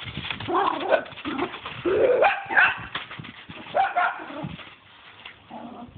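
Small dogs barking in several short bursts as they attack a pool broom head.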